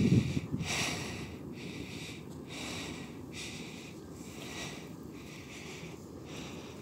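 Faint steady rumble and hiss of a distant passenger train rolling across a steel truss bridge, with wind buffeting the microphone loudest at the start and again about a second in.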